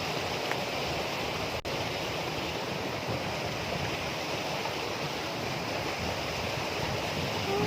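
Steady rushing of flowing water from a mountain stream, with a momentary dropout about a second and a half in.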